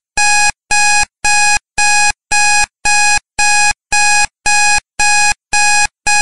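Countdown timer alarm going off at 00:00: a steady train of identical electronic beeps, a little under two a second, signalling that the time is up.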